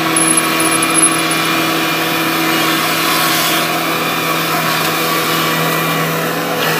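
Kubota DC70 combine harvester's diesel engine running steadily as the machine drives forward, an even hum with no change in pitch.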